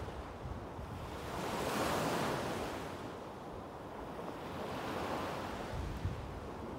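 Small waves breaking on a sandy beach and washing up the shore, the surf swelling twice and easing back between.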